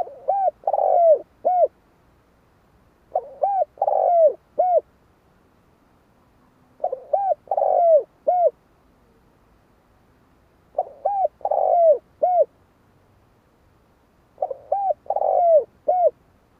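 Spotted dove cooing: five calls a few seconds apart, each a short phrase of three or four notes with a longer note in the middle.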